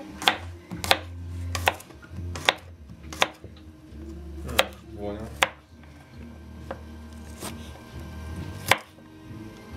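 Kitchen knife slicing peeled garlic cloves on a wooden cutting board: sharp knocks of the blade meeting the board, irregular, roughly one a second.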